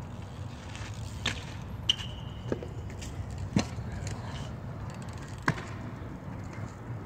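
BMX bike on concrete: about five sharp knocks and clacks of the bike hitting down and rattling, spread over several seconds, with a brief high squeak just after the second one, over a steady low rumble.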